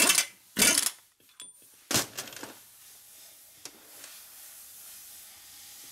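Stud extractor backing a cylinder stud out of an aluminium Harley Sportster crankcase: three short bursts of scraping, clattering noise in the first two seconds, then a faint steady hiss that slowly grows louder.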